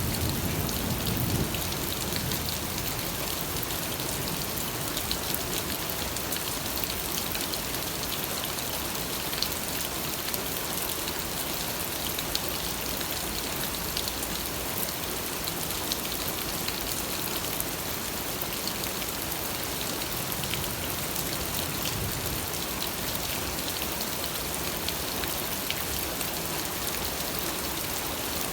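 Steady rain falling on surfaces, an even hiss with many separate drop ticks. A brief low rumble sits under it in the first second or so.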